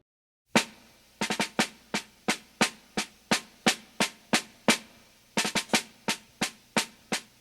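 Snare drum playing a marching cadence: crisp, evenly spaced strokes about three a second, with quick flam-like clusters of strokes about a second in and again a couple of seconds before the end. It comes in after a brief silence.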